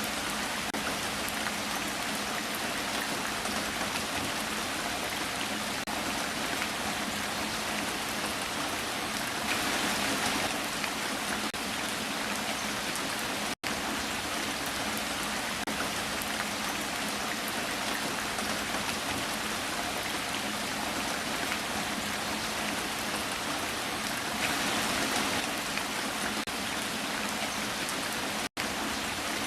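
Heavy rain falling steadily, a dense even hiss that swells slightly twice. The sound cuts out for an instant about halfway through and again near the end.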